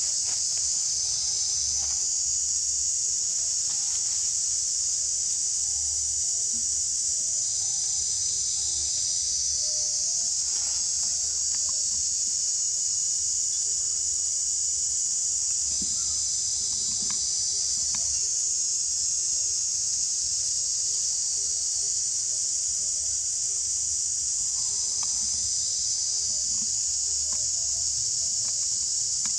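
Dense insect chorus in the forest canopy: a steady, high-pitched buzzing drone that swells a little every seven or eight seconds.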